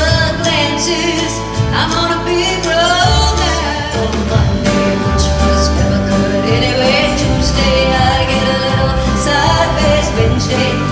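A live country song: a woman singing a sustained melody with a band of acoustic guitar, electric bass and drums.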